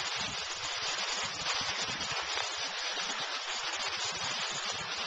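Skis sliding over snow, a steady hiss, with wind rumbling on the microphone.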